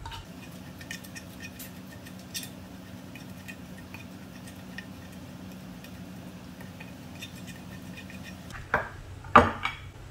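Faint clicks and scrapes of a silicone spatula on a ceramic tray as a wet herb marinade is mixed, over a steady low hum. Near the end, a few louder knocks as the tray is set down on a wooden cutting board.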